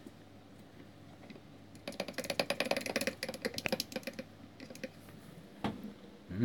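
A quick run of small plastic clicks and taps for about two seconds as a syringe is filled from a bottle, then a few more clicks and a single knock near the end.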